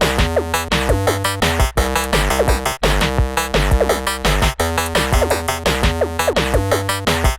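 Upbeat electronic background music: synthesizer melody and chords with sliding notes over a steady drum-machine beat.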